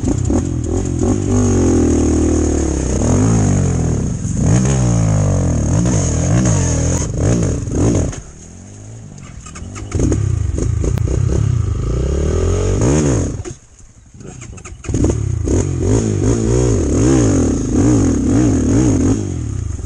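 Chinese enduro motorcycle engines revving hard and dropping back again and again under load while riding through a deep puddle. The engine sound falls away for about two seconds near the middle and briefly again later, then the revving picks up.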